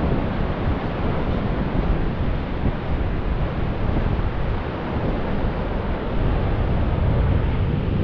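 Wind rumbling on the microphone over the steady rush of ocean surf breaking along a beach.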